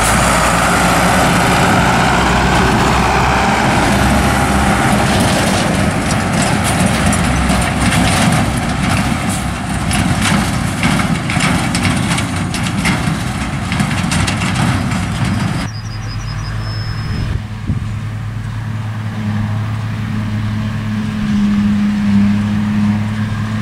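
Zetor Crystal 10145 tractor's diesel engine running close up as it drives past pulling a silage trailer. About two-thirds of the way through the sound changes suddenly to a quieter, steadier drone of a Fortschritt E 281C forage harvester and the tractor working together further off.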